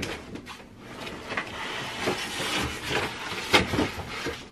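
Bassinet parts and packaging being handled as they come out of the box: rustling with several light knocks scattered through.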